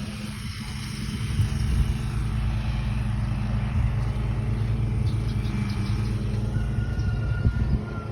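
Steady low engine hum of a motor vehicle running, with a constant low drone throughout.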